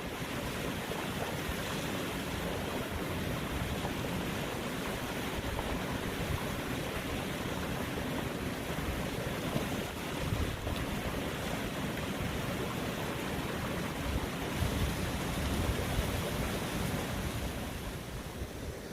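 Steady wind blowing across the microphone over the wash of the sea, with no distinct events.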